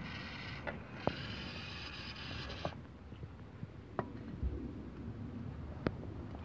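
Aerosol carburetor cleaner sprayed through its straw into a cultivator's carburetor, hissing in two bursts: a short one, then one of about a second and a half. A couple of sharp clicks follow.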